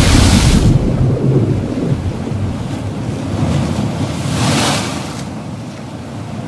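Ocean waves surging and washing, a rushing hiss that swells at the start and again about four and a half seconds in, over a low rumble that fades away.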